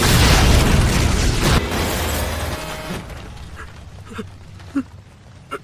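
Heavy crash of an impact, with a rumble of smashing rubble that fades over the first few seconds, then a few small knocks of falling debris.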